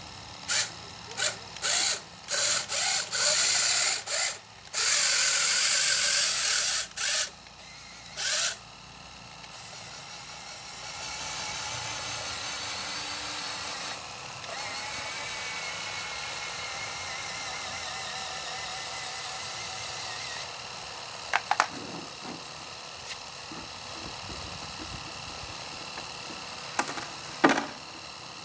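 Small electric motors and plastic gearing of a radio-controlled model Kubota DC70 Plus combine harvester whirring. They whir in a series of short bursts during the first eight seconds or so, then run steadily until about twenty seconds in, and a few clicks follow near the end.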